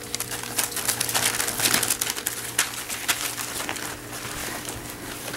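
Australian labradoodle puppies eating canned food from a stainless steel pan: a rapid, irregular run of wet smacking and chewing clicks, over a steady low hum.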